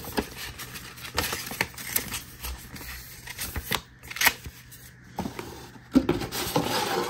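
Paper and cardboard rustling as a folded paper booklet and a cardboard box are handled, with scattered light clicks and taps. A sharper tick comes about four seconds in, and a longer, louder rustle of hands in the cardboard box near the end.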